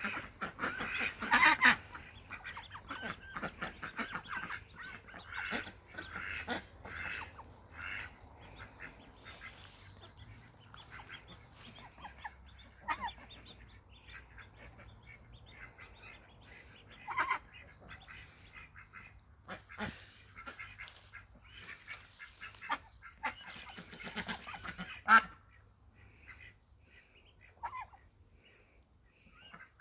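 Domestic ducks calling: scattered short quacks and chatter, with louder bursts about a second in and again near the end.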